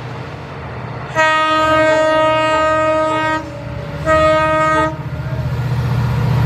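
WDG-4 diesel locomotive sounding its horn twice, a long blast and then a short one, over the low drone of its engine. The engine grows louder towards the end as the train comes up at speed.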